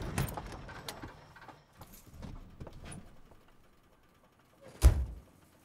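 A car door slamming shut with a single heavy thunk near the end, after a few faint clicks and rustles.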